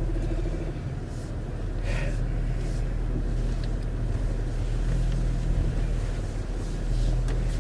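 Car engine running with a steady low hum and road noise, heard from inside the cabin as the car pulls away.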